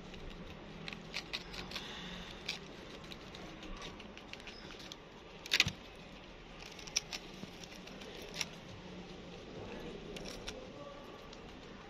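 Irregular small clicks and taps, with one louder snap about five and a half seconds in.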